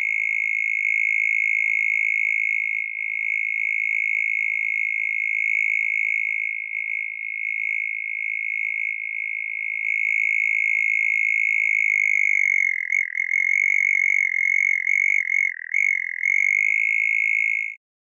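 Synthesized mole cricket trill from a software synth patch: one continuous high, buzzing tone that holds steady. About twelve seconds in its pitch starts to wobble quickly up and down, then it settles again and cuts off suddenly just before the end.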